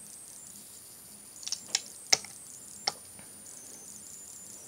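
Screwdriver clicking and tapping against the metal housing of a vacuum cleaner motor while being worked into its base: about four sharp clicks between one and a half and three seconds in.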